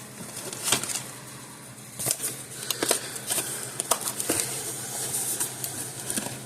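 Rustling with scattered clicks and taps as parts are handled and moved on a workbench, over a faint steady low hum.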